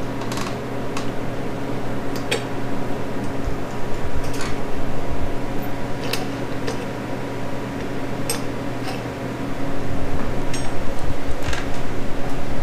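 Scattered light metallic clicks and clinks as small metal parts are handled at a snowblower's wheel hub, about ten over the stretch at uneven intervals, over a steady hum.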